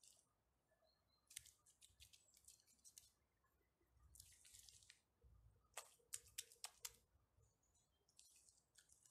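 Faint squelching and wet clicks of soft mud being scooped up and pressed by hand between the stones of a fire pit wall, with a quick run of clicks a little past halfway.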